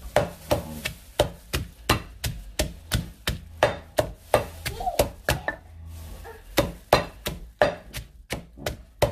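Wooden pestle pounding chillies and garlic in a mortar with steady thuds about three times a second, pausing briefly a little past halfway.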